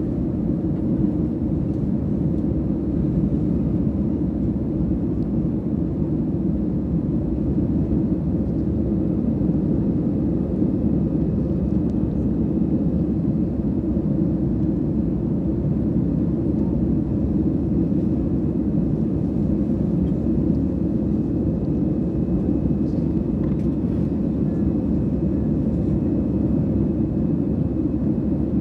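Jet airliner cabin noise: the steady low drone of the engines and rushing air heard from a window seat, even and unchanging throughout.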